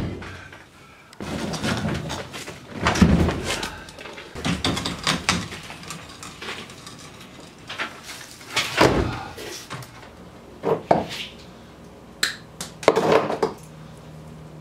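Irregular knocks, thuds and clatter from handling and working on a small fiberglass boat hull, several louder thumps among lighter taps.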